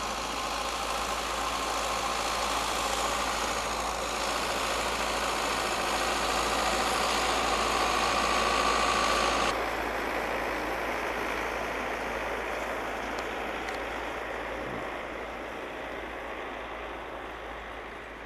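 Distant vehicle engines running steadily, a tractor-type vehicle and a car heard across open snow. About halfway through the sound cuts to a quieter steady hiss.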